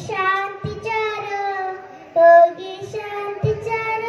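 A young girl singing solo into a microphone, her voice amplified, in short phrases of held, slightly wavering notes.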